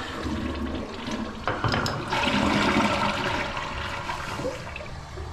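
Toilet flushing: water rushing through the bowl, swelling about a second and a half in and tapering off near the end.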